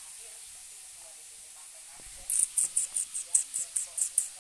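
Scratchy rustling on fabric: a quick run of short, high scratches, about five or six a second, starting about halfway through after a faint steady hiss.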